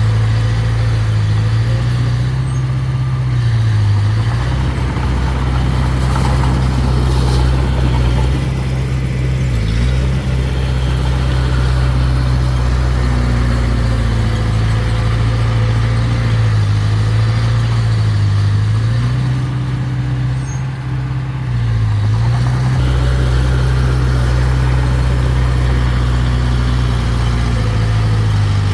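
Mini bulldozer's diesel engine running steadily at working speed, its note dipping briefly several times.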